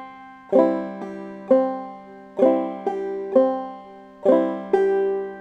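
Banjo played clawhammer style: three bum-ditty strokes on a C chord, each starting on the 2nd string, with sharp plucked attacks and ringing notes, the last note left to ring on.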